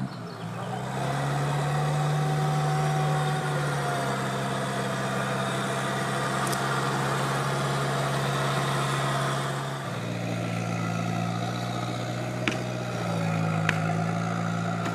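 Off-road 4x4 engine running steadily under load, its pitch shifting up and down a few times. Two sharp knocks come near the end.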